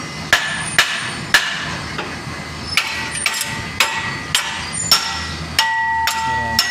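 A hammer striking metal, about ten blows at roughly two a second with a short pause after the first few, the last one followed by a clear ringing tone for about a second near the end.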